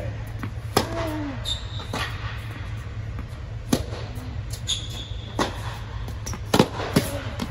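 Tennis rally on an indoor court: sharp racket-on-ball strikes and ball bounces about every one to two seconds, with a couple of short high sneaker squeaks, over a steady low hum.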